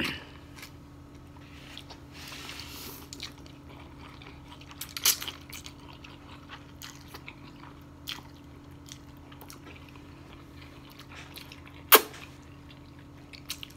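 Two people slurping noodles off forks and chewing, in short scattered slurps with a loud sharp click about twelve seconds in, over a faint steady hum.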